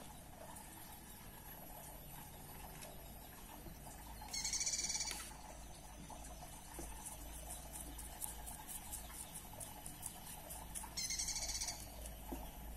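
A wooden stick stirs a feed mash of bird food and ant eggs in a small plastic cup with faint, rapid scraping. Twice, a short, loud, high-pitched trill cuts in: about four seconds in for about a second, and again near the end.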